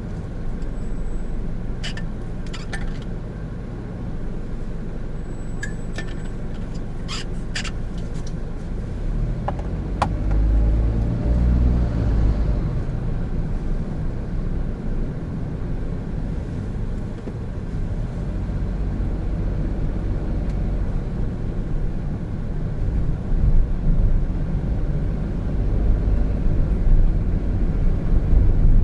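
Cabin noise of a 2017 Honda N-BOX Custom on the move: its 660cc turbo engine and tyre and road rumble, swelling a little near the middle and toward the end. A few sharp light clicks or rattles come within the first ten seconds.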